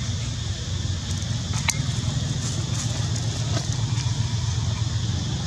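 Steady low background rumble with a hiss over it, and a faint click about one and a half seconds in.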